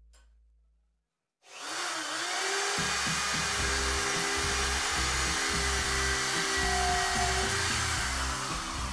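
Corded electric drill starting about a second and a half in and running steadily under load, its whine wavering as it spins up. Background music with a stepping bass line plays alongside.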